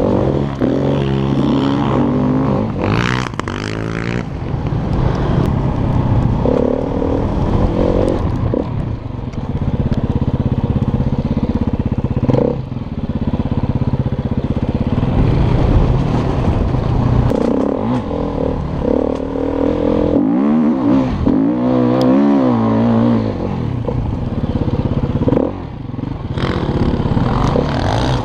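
Four-stroke dirt bike engine ridden hard over sand, its pitch climbing and dropping again and again with throttle and gear changes, heard from the rider's helmet.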